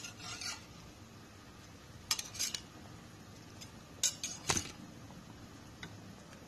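A metal spoon clinking and scraping against a ceramic plate and the rim of a metal wok in short clusters of sharp clicks, about two seconds apart, while fried eggs are pushed off the plate into the broth.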